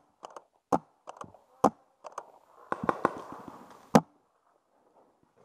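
Sharp pops of a CCM J6 pump paintball marker firing, roughly one a second, with lighter clicks between the pops; the loudest pop comes near the end, after a short rustle.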